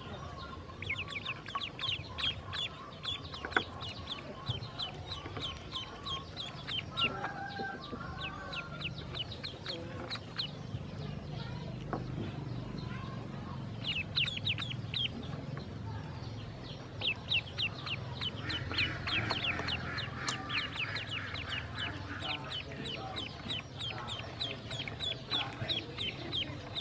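Ducklings peeping: many short, high peeps in quick runs that come and go, busiest in the first few seconds and again over the second half.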